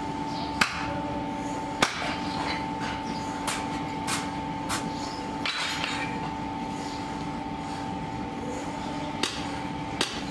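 Sharp, hammer-like knocks at irregular intervals, about eight of them, over a steady machine hum with two held tones.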